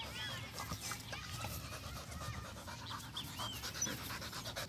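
A Rottweiler panting in a quick, even rhythm.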